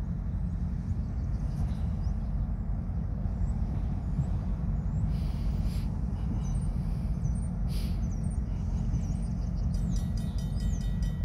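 Diesel freight locomotive running with a steady low rumble as it slowly pulls tank cars. Two brief hisses come about five and eight seconds in, with birds chirping. A rapid, evenly repeating bell-like ringing starts near the end.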